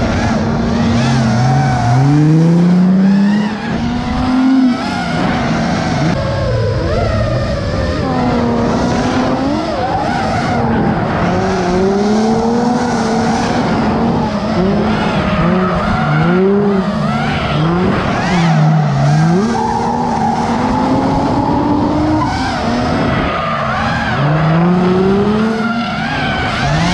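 Drift cars' engines revving up and down again and again while their tires squeal and skid through the corners.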